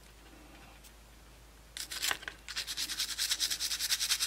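Toothbrush scrubbing a small die-cast toy-car part in soapy water. It is quiet for the first second and a half, then a brief scrub, then rapid back-and-forth strokes, about eight a second, from about two and a half seconds in.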